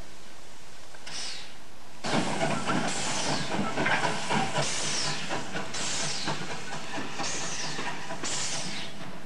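Steam locomotive working slowly: sharp hissing exhaust beats about once a second, each trailing off, with steam hiss and clanking between them.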